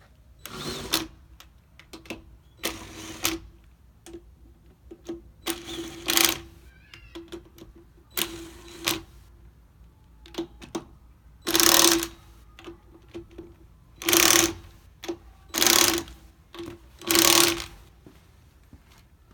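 Impact wrench running in repeated short bursts, about eight in all, each under a second long, with brief trigger blips between them, as it spins lug nuts or a jack screw.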